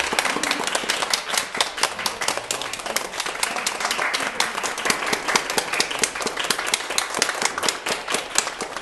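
Audience applauding: many hands clapping at once in a dense, irregular patter.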